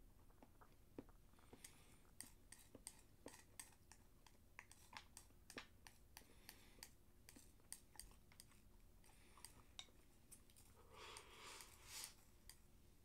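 Eating from a bowl with chopsticks: the chopsticks click and tap against the stoneware bowl, two or three quiet clicks a second, with soft chewing. About eleven seconds in comes a louder noisy sound lasting about a second, as the bowl is raised to the mouth and food is shovelled in.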